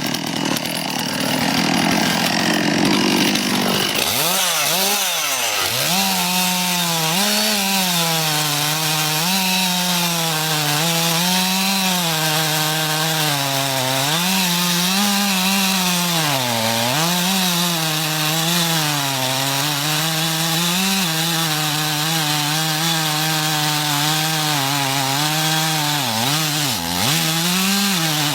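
Chainsaw running at high throttle while cutting wood. Its engine pitch keeps dipping and recovering every second or two as the chain bites under load.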